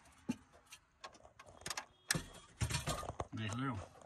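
Ratchet wrench clicking and metal knocking as nuts on the truck cabin's wooden body are tightened; the nuts had worked loose because the wood dried out. A man's short voice sound comes near the end.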